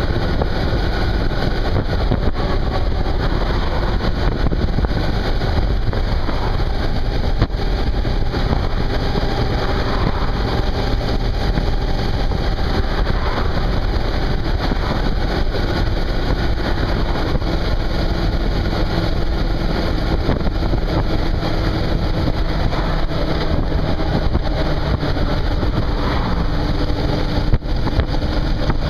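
Suzuki V-Strom 650's 645 cc V-twin engine running at a steady cruise, under dense, steady wind and road noise.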